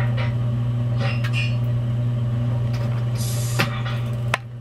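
Steady low electrical hum of a turtle tank's water pump, with a couple of light clicks and a brief hiss about three seconds in.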